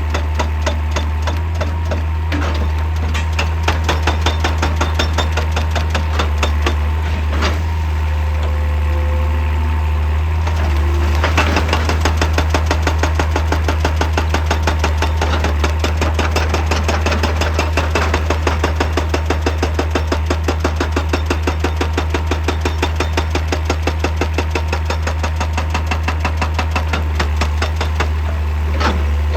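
Excavator-mounted hydraulic breaker hammering rock with rapid, evenly spaced blows, over the excavator's diesel engine running steadily. A few heavier single knocks stand out among the blows.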